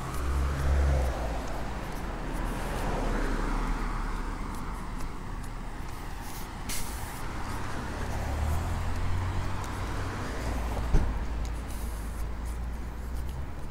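Street traffic: a motor vehicle's engine rumbles and passes, swelling near the start and again later, with one short hiss about seven seconds in.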